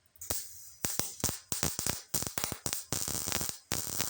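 MIG welder laying tack welds with thin .024 wire on a sheet-metal patch panel: the arc crackles in a quick run of short bursts, each a fraction of a second long.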